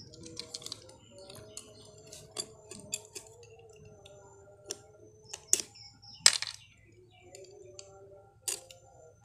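Freshwater snail shells being cut open with a small knife blade on a banana leaf: a run of sharp clicks and cracks, the loudest about two-thirds of the way in.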